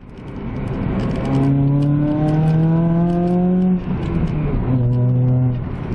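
Car engine accelerating: its pitch climbs steadily, breaks off just under four seconds in, then picks up again at lower revs, as through an upshift.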